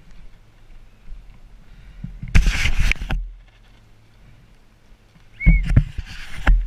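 Two bursts of rough rubbing and rushing noise right on a helmet camera's microphone, each about a second long: one about two seconds in and one near the end, as the lens is covered. A short squeak comes at the start of the second.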